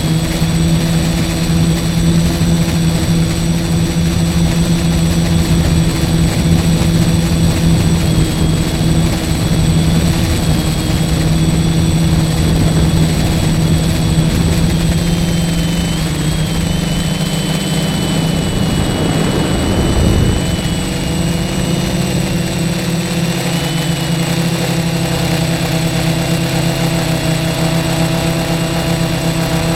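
F450 quadcopter's brushless motors and propellers droning steadily in flight, the pitch shifting slightly a couple of times. A brief rushing noise comes in about two-thirds of the way through.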